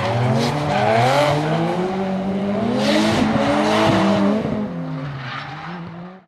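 Two drift cars' engines revving up and down while their tyres squeal in a slide. The sound fades over the last couple of seconds and cuts off just before the end.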